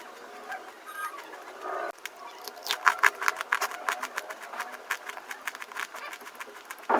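Fast crunching: a dense, irregular run of crisp cracks, thickest from about two and a half seconds in.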